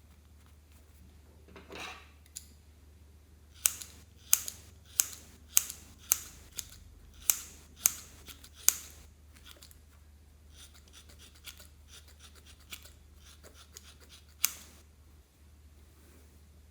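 Scissors snipping, about a dozen sharp snips roughly half a second apart, then softer crackling and scraping and one last snip near the end.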